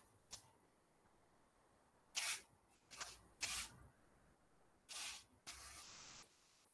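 Spray paint hissing in about five short bursts, the last a little longer, as a coat is sprayed on.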